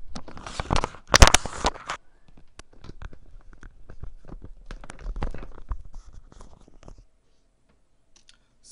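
Scraping and rustling close to the microphone, loud for the first two seconds, then scattered crackles and clicks that stop about seven seconds in.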